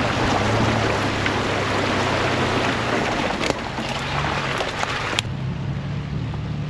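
Off-road truck engine running low and steady under a loud rushing, splashing noise of tyres pushing through water and mud. The splashing cuts off suddenly about five seconds in, leaving the engine hum.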